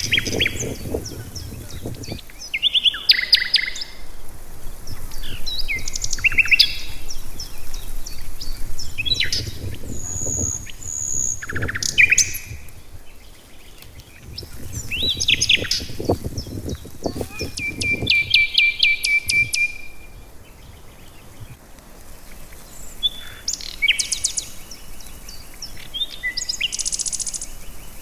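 Several birds singing and calling in woodland: many short chirps and trills, some repeated in quick series, with a low rumble coming and going at the start and again around the middle.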